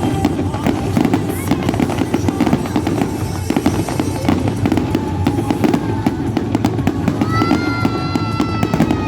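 Fireworks going off in a dense stream of crackles and pops, with music playing alongside; held tones come in about seven seconds in.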